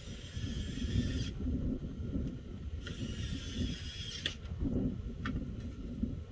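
HP OfficeJet Pro 8710 inkjet printer mechanism running, with two whirring bursts of about a second and a half each, one at the start and one about three seconds in, over a low rumble. A short click comes near the end.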